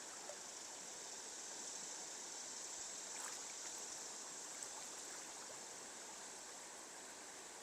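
Faint, steady rush of a river's fast current flowing past.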